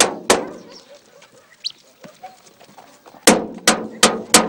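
A stick banging on a metal door: one knock just after the start, then after a pause four quick knocks near the end, each ringing briefly.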